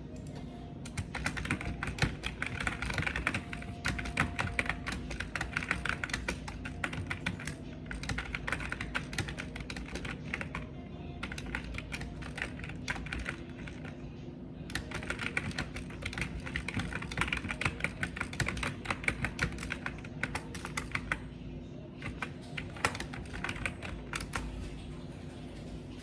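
Computer keyboard typing: quick runs of key clicks with short pauses between them, over a steady low hum.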